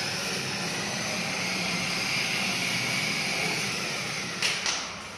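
Children's battery-powered ride-on toy motorcycle running, a steady whirring drone from its electric motor and plastic wheels. Two short clicks come near the end, and then the sound fades away.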